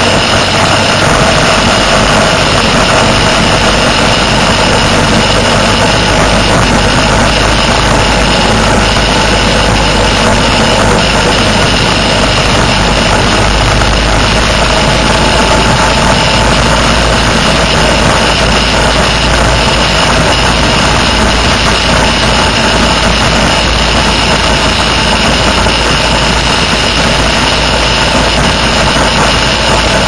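Motorcycle engine running at highway cruising speed, heard from a moving bike, mixed with wind rush; the sound holds steady.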